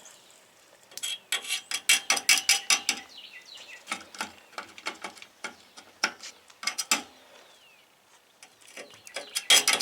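Stick-welding arc from three car batteries crackling in short, irregular sputters as the rod is struck against the work, with the densest burst near the end. The arc keeps breaking off instead of holding, which the welder puts down to a poor connection.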